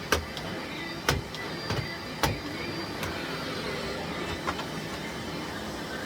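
Miele Blizzard CX1 bagless vacuum cleaner running steadily as its floor tool is worked over carpet, with three sharp knocks in the first couple of seconds.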